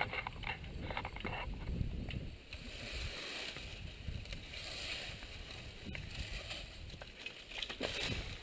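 A large fallen tree branch being dragged off the road: leaves and twigs rustling and scraping over the pavement, with short knocks and snaps near the start and end.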